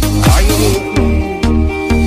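Electronic backing music with a steady beat of deep bass notes that each slide down in pitch.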